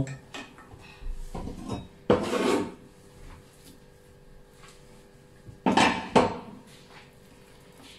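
Chopsticks and a knife clinking and scraping against a stainless-steel mixing bowl of batter as chopped scallions are added, in a few short bursts with quiet stretches between.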